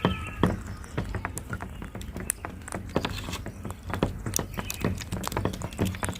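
Brief rose-ringed parakeet calls near the start, then an irregular clatter of sharp clicks and knocks over a steady low rumble.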